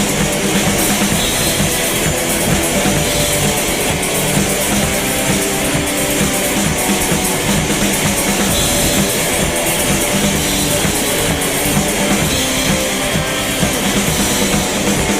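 Rock band playing an instrumental passage with no singing: drum kit and electric guitars at a steady, loud level.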